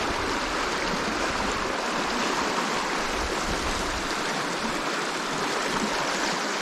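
Steady rush of river water flowing, with intermittent low rumbles of wind buffeting the microphone.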